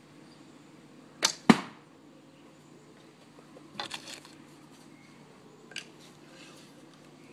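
A Boarriorbows traditional longbow shot: a sharp string release followed about a quarter second later by a louder thump of the arrow hitting the target. Fainter clicks and rattles follow a few seconds later.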